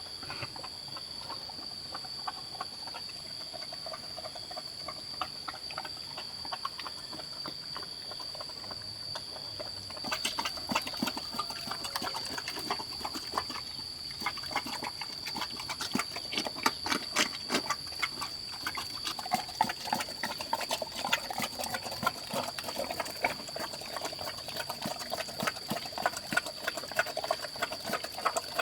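Pigs grunting, with a rapid scatter of small clicks that starts about a third of the way in.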